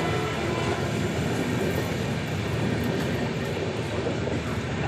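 Indian Railways express train running through without stopping: a steady rumble and rattle of the coaches on the track, with no horn sounding.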